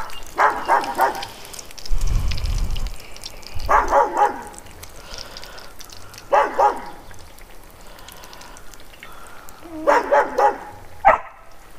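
A dog barking in four short runs of quick yaps, over the steady sizzle of battered fish and morel mushrooms deep-frying in oil in a cast iron skillet.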